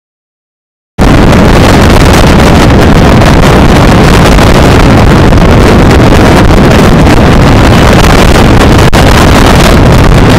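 Loud, clipping wind rush on the microphone of a camera on a moving motorcycle, with the bike's running noise mixed in. It starts abruptly about a second in, after dead silence.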